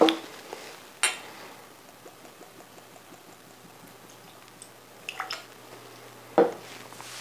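Whisky poured from a small glass sample bottle into a nosing glass, with glass clinks and knocks on the table; the loudest knock comes about six and a half seconds in as the bottle is set down.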